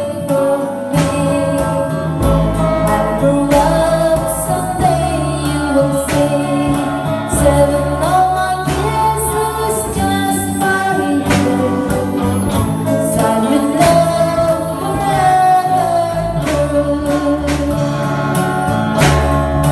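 A woman singing a song into a microphone through a karaoke sound system, with electric guitar accompaniment over a steady beat of bass and drums.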